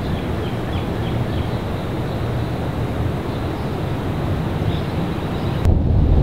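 Steady outdoor rumble with wind on the microphone, and faint short high chirps about three a second in the first second and a half. About five and a half seconds in it cuts to louder, gustier wind noise with the high end gone.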